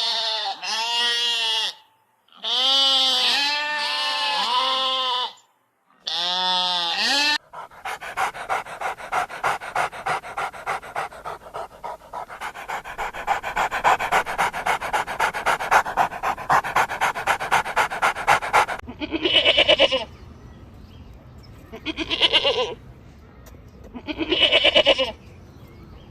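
Farm animals calling: three bursts of wavering bleats, then a dog panting fast for about eleven seconds, then four short bleats a couple of seconds apart.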